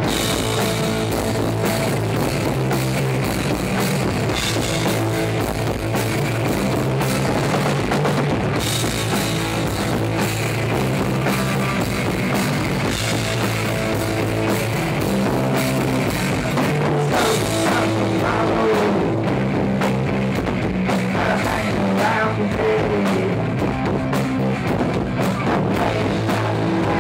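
Rock band playing: a drum kit keeping a steady beat under guitar and bass.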